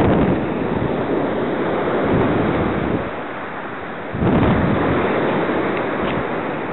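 Surf breaking on the shore in repeated surges, swelling about every two seconds, with wind buffeting the microphone.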